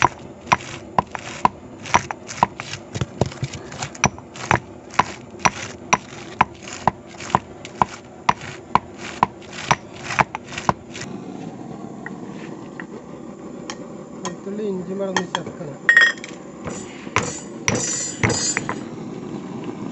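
Black peppercorns pounded in a small stone mortar with a stone pestle: steady, sharp strikes about two and a half a second, stopping about eleven seconds in. After that, a few scattered knocks and scrapes of stone on stone.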